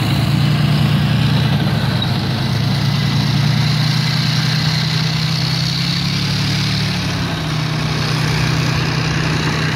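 Heavy military vehicle engine running steadily, its pitch rising slightly about six seconds in and settling back down a second or so later.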